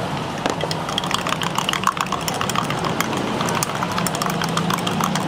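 Metal spoon clinking quickly and repeatedly against a drinking glass as a drink is stirred, over a steady low hum of idling engines and traffic.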